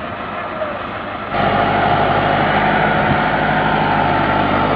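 Massey Ferguson 375 tractor's diesel engine running, then opening up sharply about a second in and holding high revs under heavy load as it strains to haul an overloaded sugarcane trolley.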